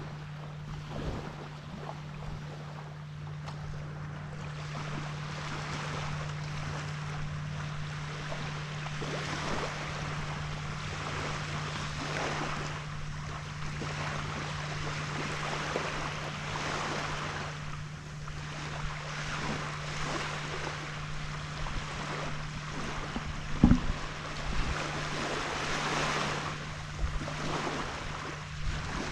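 Small waves washing onto a beach, the surf swelling and fading every few seconds, over a steady low hum and occasional wind buffeting on the microphone. A single sharp knock comes near the end.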